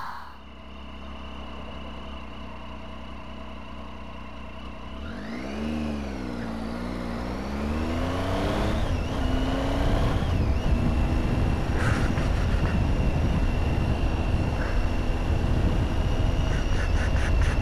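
Motorcycle engine idling steadily, then revved with the pitch rising and falling through gear changes as the bike pulls away about five seconds in, followed by a steady engine drone under heavy wind rush while riding.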